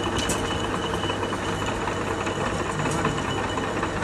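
Metal lathe running with its chuck spinning during external thread cutting with an indexable threading insert: a steady machine hum with a high, even whine, and a sharp click about a third of a second in.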